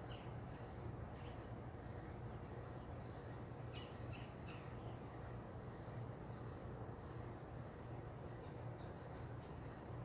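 Outdoor dawn ambience: insects call in a steady high pulsing, about one and a half pulses a second. A few short bird chirps come near the start and again about four seconds in, over a steady low hum.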